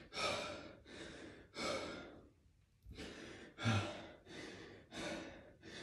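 A man out of breath after hard exercise, panting in quick, heavy breaths with audible sighs, pausing briefly a little over two seconds in.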